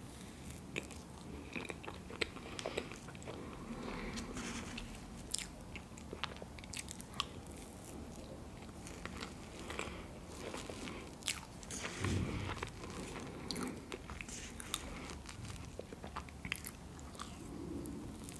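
Close-miked ASMR eating sounds: a person chewing soft chocolate cream cake off a plastic spoon, with many small sharp mouth clicks and smacks.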